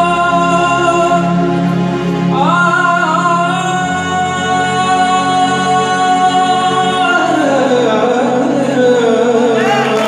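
A male vocalist sings a long held note over a sustained electronic keyboard chord: his voice slides up into the note about two seconds in, holds it, then falls away in an ornamented, wavering run. Applause starts to break out at the very end.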